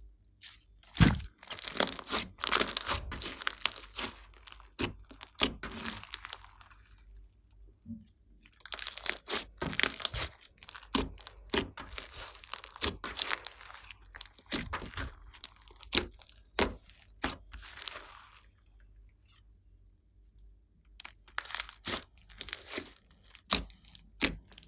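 Glossy slime being squeezed, stretched and folded by hand, giving off bursts of sticky clicks and crackles in three stretches with short pauses between.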